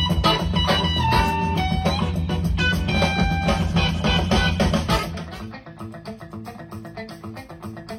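Instrumental dance-band music: a full band with guitar and held melody notes, which drops about five seconds in to quieter, quickly repeated plucked guitar notes over a bass line.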